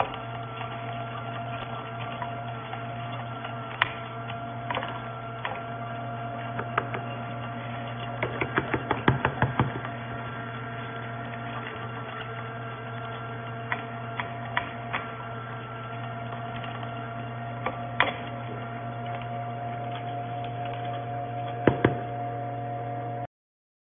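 FELI NBM-400 nut butter grinder's small electric motor running steadily with a constant hum while grinding almonds into almond butter. Scattered sharp clicks sound over it, with a quick run of them about eight to ten seconds in and a couple more near the end, and the sound cuts off abruptly just before the end.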